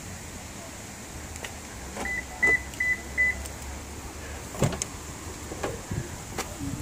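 Four short, high electronic beeps at about three a second, then the clunks of a 2011 Toyota Camry LE's front door being unlatched and swung open.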